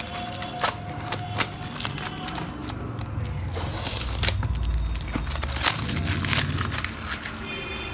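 Packing material being handled and crinkled: irregular rustling with sharp crackles and snaps as a parcel is unpacked by hand.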